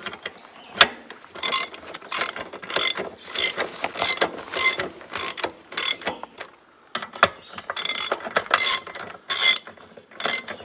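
Hand socket ratchet wrench clicking in quick bursts, about two a second, as lug nuts are run onto the studs of an International 414 tractor wheel; the clicking pauses briefly about six seconds in, then resumes.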